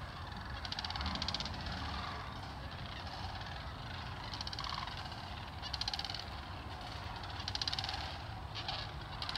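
A flock of sandhill cranes calling, many rattling calls overlapping and coming in waves every second or two.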